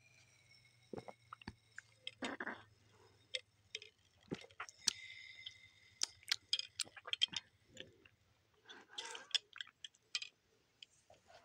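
Someone drinking soda through a metal straw: faint sipping and swallowing mouth sounds with many small scattered clicks.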